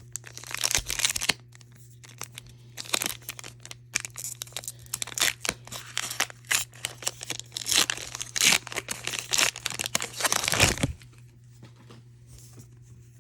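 Foil Pokémon booster pack wrapper being torn open and crinkled in the hands, an irregular run of crackles and rips that stops about two seconds before the end.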